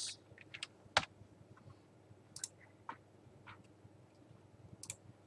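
A handful of isolated clicks at a computer, spaced half a second or more apart, the loudest about a second in.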